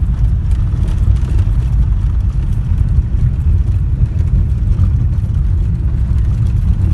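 Steady low rumble inside a car's cabin as it drives along a dirt track: engine and tyres on the unpaved surface.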